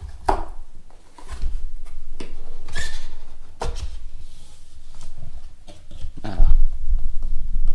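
Cardboard gift box being opened by hand: the pull-tab tear strip rips along the edge, then the lid is lifted and the cardboard scrapes and clicks. Near the end a heavy low rumble of handling noise takes over.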